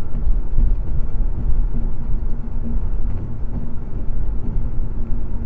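Steady low rumble of road and engine noise from a car cruising at highway speed, heard inside the cabin.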